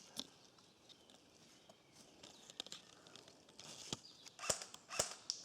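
Footsteps crunching through dry leaves and twigs on a forest floor, irregular and fairly quiet, with a few sharp snaps near the end.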